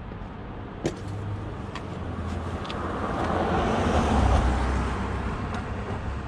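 A passing vehicle: road noise that swells to a peak about four seconds in and fades away. A single sharp click comes about a second in.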